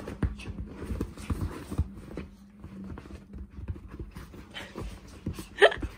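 Small Pomeranian–Chihuahua mix dog rolling and rubbing itself on bedsheets and a towel after a bath: irregular fabric rustling and soft knocks, with light panting. A short, sharper sound comes near the end.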